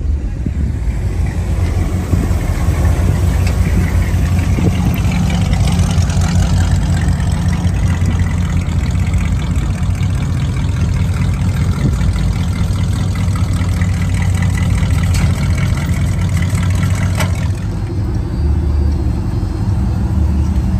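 Car and truck engines idling and running at low speed, a steady low rumble, with the sound shifting about three-quarters of the way through.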